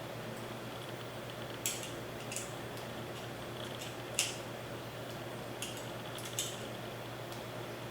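Small metallic clicks and taps, about five spread over several seconds, the loudest about four seconds in, as M5 hex screws are worked into T-slot nuts in aluminium extrusion with an Allen wrench. A low steady hum sits underneath.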